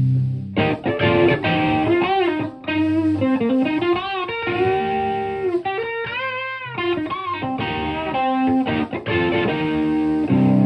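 Overdriven electric guitar, a Stratocaster through an Ibanez TS-808 Tube Screamer into a Marshall Plexi amp and 4x12 cabinet, playing a bluesy single-note lead with string bends. A held chord is ringing at the start, and a new chord is struck near the end.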